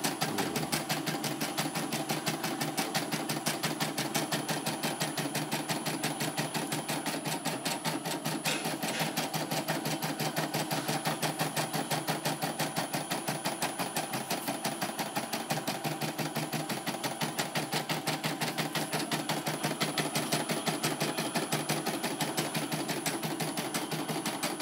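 CNY portable computerized embroidery machine stitching, its needle working in a rapid, even rhythm. It runs smoothly, the thread not breaking.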